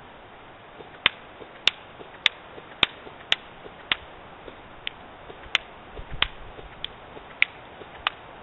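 Airsoft electric gun firing single shots of .25 g BBs, about a dozen sharp cracks at a bit under two a second, starting about a second in.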